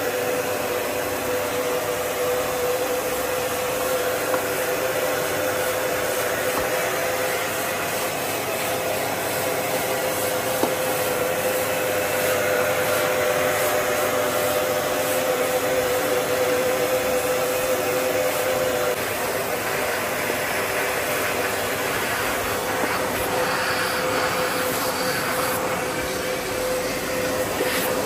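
Vacuum cleaner running steadily: a constant whine over rushing air, the whine growing weaker about two-thirds of the way in.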